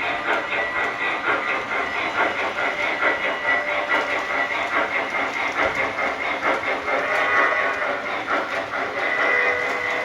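O gauge model train running along the layout's track: a fast, even clatter of wheels on the rails, with a steady high tone over it.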